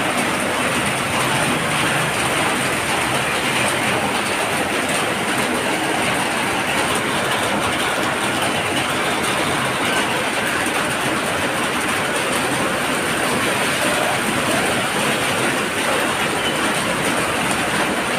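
Muddy floodwater rushing down a street in a fast torrent, a steady, unbroken roar.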